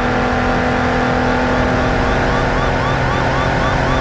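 Police car siren in a fast yelp: rising-and-falling whoops, several a second, over a steady low hum.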